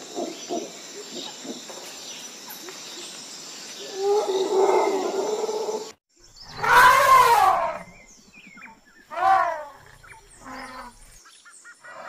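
Lion cubs growling in short rhythmic pulses, then a louder drawn-out growl. After a break, elephant calls: one loud trumpeting call that rises and falls, and a shorter one a couple of seconds later.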